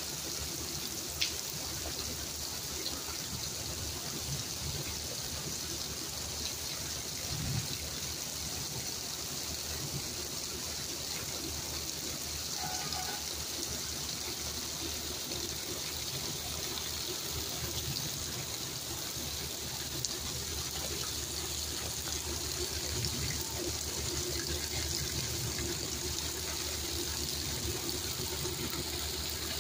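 Heavy rain falling steadily, an even hiss. A single sharp click about a second in.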